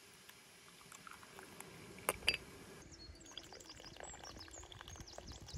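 Tea poured from a glass teapot into a small glass tea cup, with two sharp clinks about two seconds in. Then hot water trickles from a samovar's tap into the glass.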